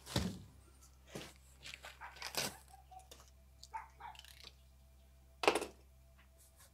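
Large cardboard box being handled on a metal table: scattered scrapes and knocks of cardboard, the loudest a sharp scrape about five and a half seconds in.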